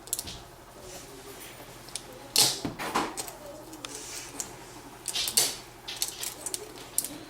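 A graphics card's cardboard box and packaging being opened and handled: several short scrapes, rustles and clicks, the loudest about two and a half and five seconds in.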